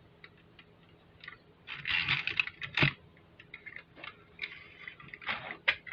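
Handling noises: a scatter of small clicks and knocks with two short spells of rustling, as objects are picked up and moved about.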